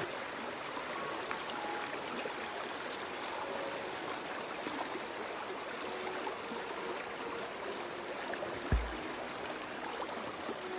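Steady rushing of a creek running over small cascades, with one low thump about nine seconds in.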